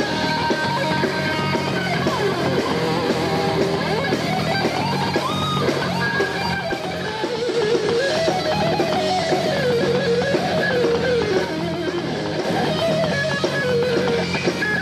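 Live rock band with distorted electric guitars: a lead guitar line that bends and wavers in pitch, most plainly in the middle, over a steady low backing.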